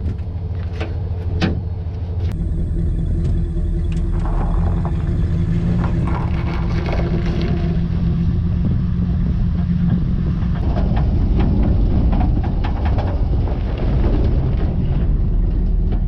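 A few sharp metallic knocks in the first two seconds at the gooseneck trailer's hitch, then a steady low rumble of the gooseneck stock trailer and its tow truck rolling over packed snow, heard from beneath the trailer.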